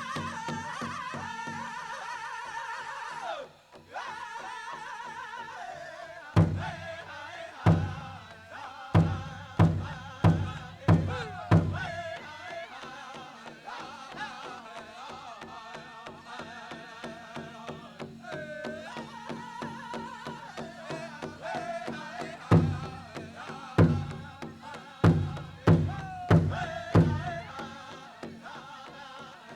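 Powwow drum group singing a men's prairie chicken dance song over a big drum beaten in a steady pulse. Two runs of loud, accented drum strikes (hard beats) come about six seconds in and again past twenty seconds.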